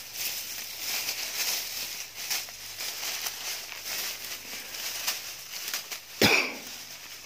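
Dry grass and dead leaves rustling and crackling as a hand pushes through a grass clump and feels along the ground. There is one louder, sharp sound about six seconds in.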